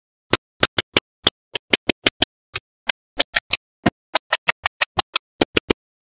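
Small magnetic steel balls clicking and snapping together as they are set in place: a quick, irregular string of sharp clicks, about five a second, with dead silence between them.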